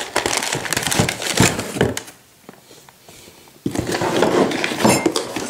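Cardboard boxes and packing paper rustling and scraping as a boxed model locomotive is pulled out of a shipping carton. The handling comes in two spells, with a pause of about a second and a half in the middle.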